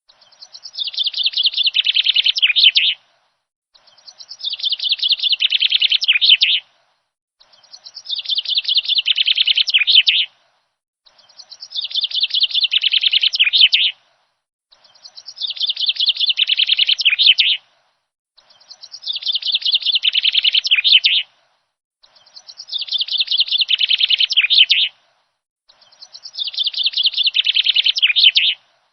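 Songbird singing a rapid trilled phrase of about three seconds that swells in loudness and ends in a few falling notes. The same phrase repeats eight times at even intervals with dead silence between, like a looped recording.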